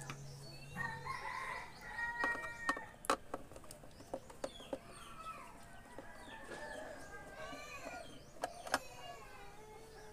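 Chickens clucking and a rooster crowing in the background, with a few sharp clicks of a screwdriver working the metal screws of a megaphone's battery compartment.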